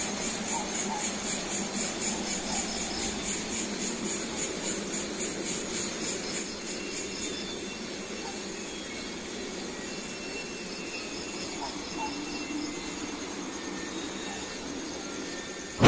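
Night insects chirping in a fast, even rhythm, about four pulses a second, over a steady low hiss; the chirping fades out about halfway through.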